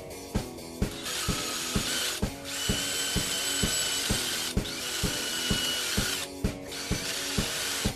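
Cordless DeWalt drill running at speed while drilling down through a thin cedar plaque into the cross: one short run, a brief stop, then a longer run of about four seconds. Background music with a steady beat plays underneath.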